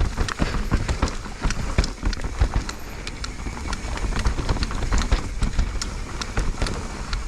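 Mountain bike descending a rough dirt trail: tyres rumbling over the ground and the bike rattling, with irregular sharp clicks coming from somewhere on the bike that the rider cannot place.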